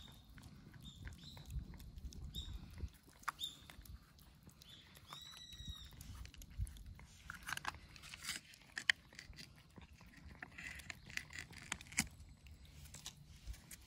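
Cats chewing dry kibble: a scatter of small crisp crunches and clicks as they eat.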